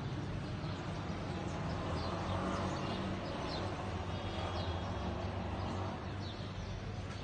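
Outdoor ambience: a steady low rumble of distant traffic, with birds chirping in short, quick notes throughout.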